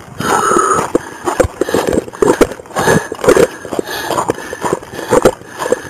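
Hurried footsteps on gravel with gear and rifle rattling, a quick irregular clatter heard close on a body-worn camera.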